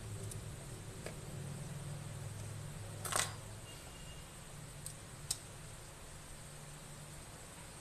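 A few light clicks and taps of tweezers and small parts on an open MacBook Pro A1278, as a flex-cable connector and a part are pressed into place. The loudest tap comes about three seconds in and two small clicks follow, over a low steady hum.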